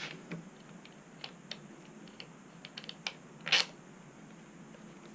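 Scattered light clicks and taps of metal hardware being handled as a Onewheel Pint's wheel axle is lined up with the board's rails, with one louder knock about three and a half seconds in.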